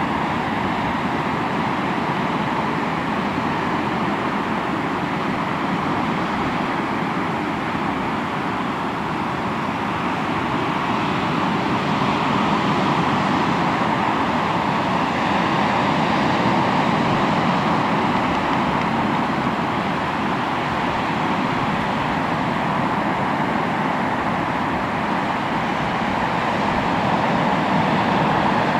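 Sea waves breaking and washing onto the shore: a steady rush of surf that swells louder about halfway through and again near the end.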